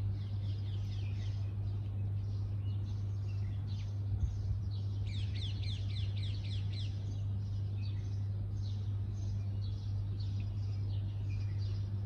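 House sparrows chirping over and over, with a quick run of rapid falling chirps around the middle. A steady low hum runs underneath.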